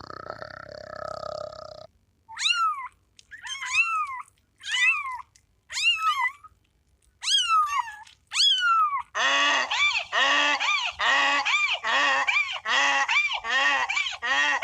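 A low animal grunt ends about two seconds in. Then a cat meows six times, about once a second. From about nine seconds in comes a fast run of loud, repeated nasal calls from waterfowl.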